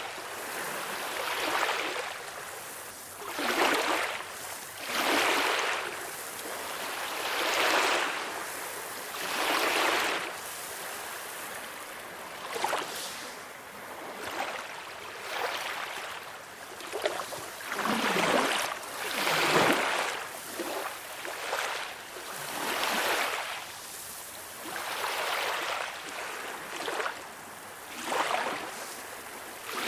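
Small, calm sea waves washing in and breaking, a swell of surf hiss rising and falling every two seconds or so.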